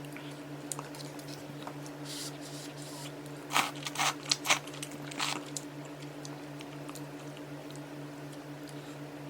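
Close-up eating sounds from a hot pot meal: wet chewing and squishing, with a quick run of louder sharp sounds around the middle. A steady low hum runs underneath.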